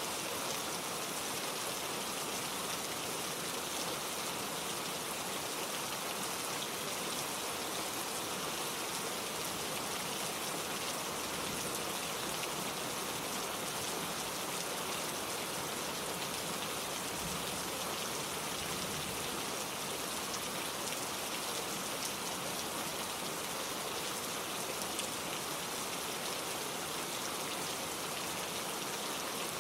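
Steady gentle rain falling, an even patter of drops with no thunder.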